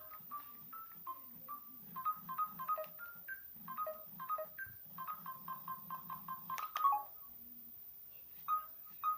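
Samsung phone's speaker playing a short, bright electronic ringtone melody of quick notes. The phrase ends in a fast run of repeated notes and stops about seven seconds in, then starts again with two notes near the end.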